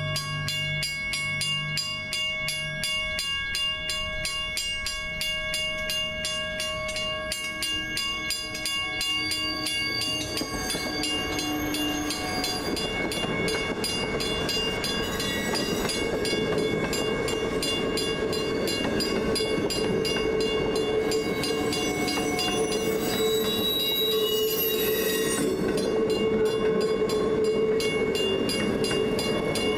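South Shore Line electric interurban train running on street track, its wheel and running noise growing steadily louder from about halfway through as it approaches.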